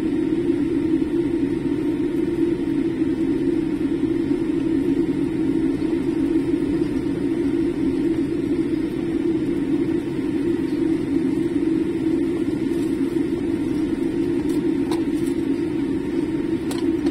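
Steady cabin rumble of a Boeing 787-8 rolling along the ground after landing, with its engines and wheels droning evenly. A few faint clicks near the end.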